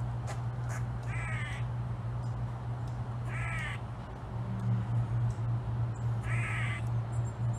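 An animal gives three harsh calls, each about half a second long, a couple of seconds apart, over a steady low hum.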